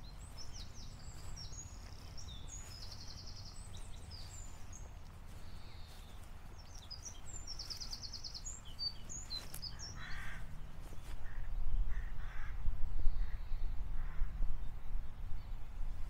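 Outdoor birdsong: a small songbird's quick, high chirps and trills for the first half, then a crow cawing several times from about ten seconds in. A low rumble runs underneath and grows louder in the second half.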